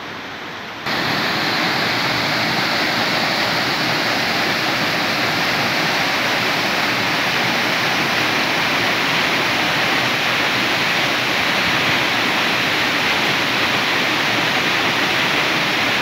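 Dyserth waterfall pouring steadily, heard close up. A loud, even rush of falling water that steps up louder about a second in.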